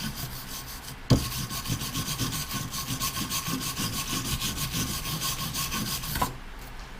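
Weld bead being scrubbed clean after the slag is chipped off: a knock about a second in, then rapid, even back-and-forth rubbing strokes with a faint ring from the metal, stopping about a second before the end.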